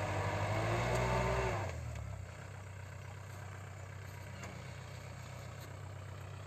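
Diesel engine of a 5018 tractor labouring as it pulls a five-disc plough through the soil, its pitch rising a little. About two seconds in the sound falls away to a quieter, steady engine hum.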